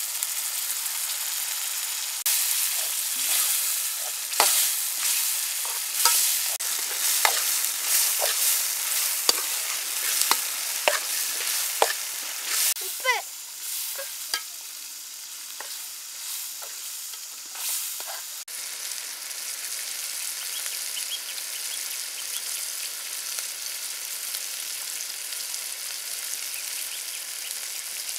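Onion, pea and tomato masala sizzling in a large metal pot over a wood fire, just after tomato juice has gone in. For most of the first two-thirds it is stirred, the spoon scraping and knocking against the pot many times; after that it sizzles steadily.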